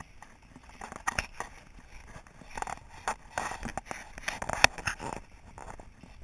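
Footsteps crunching over gravel and then through dry mown grass, with the rustle of a carried camera, as irregular crackles and scrapes. One sharp click stands out a little past four and a half seconds.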